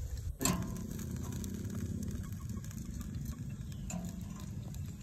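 Chicken feet sizzling and crackling on a grill over a fire, with a steady low noise, faint scattered ticks, and one sharp click or knock about half a second in.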